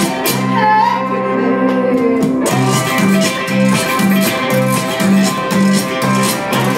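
Live band playing with upright bass, electric guitar and drums. The drumming stops for about two seconds just after the start, then comes back in under the steady bass.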